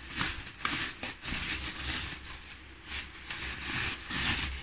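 Bubble wrap crinkling and rustling in irregular bursts as hands pull it off a packed item, with a few sharp crackles.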